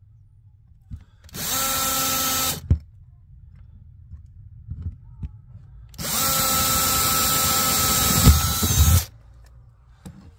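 Electric drill boring holes through the ceiling. It runs in two steady bursts: a short one of about a second, then a longer one of about three seconds.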